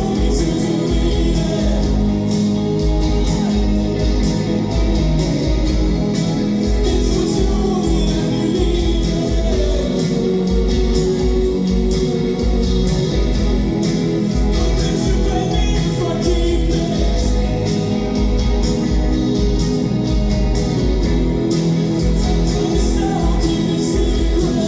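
A live band playing loud amplified music: a singer over electric guitar, a heavy pulsing bass and drums.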